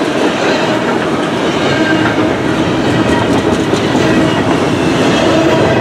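Freight train led by a Union Pacific SD70M diesel locomotive running past, a steady loud rumble of the train on the rails.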